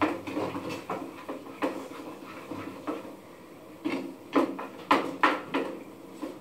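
A cooking utensil stirring and scraping noodles in a hot frying pan, with a few short knocks against the pan, several of them coming close together later on.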